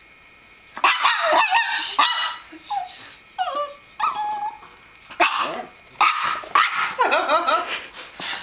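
Small dog barking in repeated high yips, starting about a second in, with whining between the barks.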